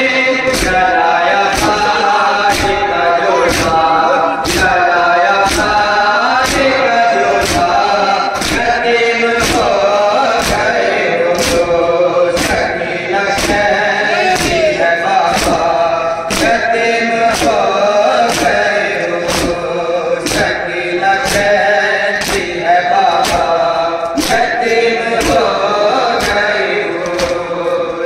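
A group of men chanting a nauha (Shia lament) together, kept in time by a steady beat of sharp hand strikes a little more than once a second: matam, rhythmic chest-beating by the mourners.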